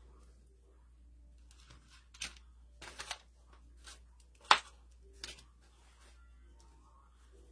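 Scattered rustles and light clicks of dried greenery and floral picks being handled on a wooden craft board, with one sharp click about four and a half seconds in.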